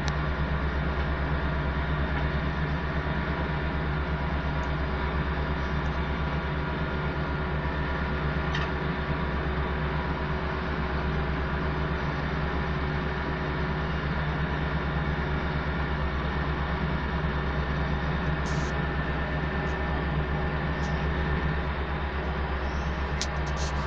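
Diesel engine of road-paving machinery running steadily with a deep, even hum, with a few faint clicks over it.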